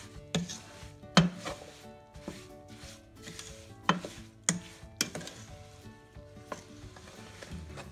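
A spoon stirring grated green mango with sugar and spices in a stainless steel pot, with irregular sharp knocks and scrapes against the pot's metal sides and bottom, roughly one a second. The mix is kept moving over low heat so it does not stick to the bottom before the mango gives up its juice.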